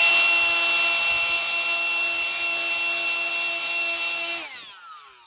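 A small electric motor whining at a steady high speed, then spinning down with falling pitch near the end.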